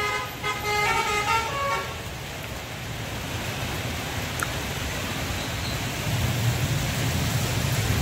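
Multi-tone basuri 'telolet' bus horn playing its stepped melody, which stops about two seconds in. After it, steady wet-road traffic noise, with a low engine rumble growing near the end.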